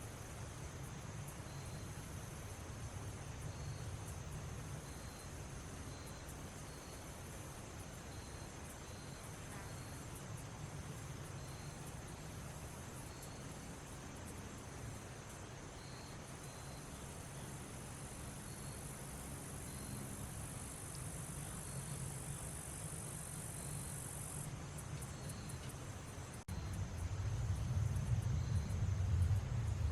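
Crickets and other insects chirping steadily in the woods: a regular short chirp about once a second over a high steady trill, with a higher buzz that stops abruptly past the middle. A low rumble underneath gets louder after a sudden break near the end.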